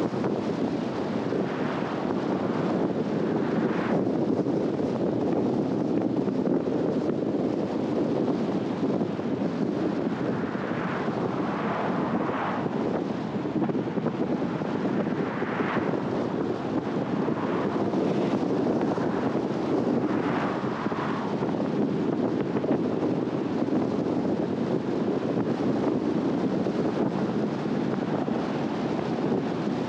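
Car driving: steady road, engine and wind noise, with a few brief swells of higher noise.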